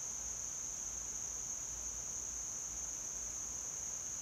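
Steady, unbroken high-pitched chorus of insects in the trees, one continuous shrill tone.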